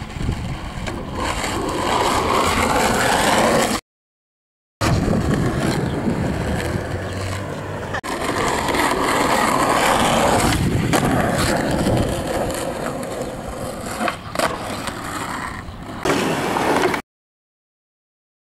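Skateboard wheels rolling over rough, cracked asphalt, a continuous gritty noise, with a few sharp clacks from the board. The sound cuts off twice, for a second or two each time.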